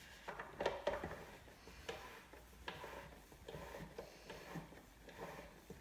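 Vinyl record being turned by hand through a Spin-Clean Record Washer Mk II: faint, irregular clicks and rubbing as the disc turns against the washer's pads and plastic rollers, busiest about half a second in.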